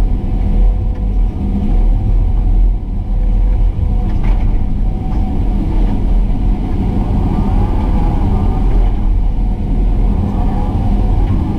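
Hydraulic excavator's diesel engine running steadily with a low rumble and a held whine above it, the pitch wavering somewhat in the second half.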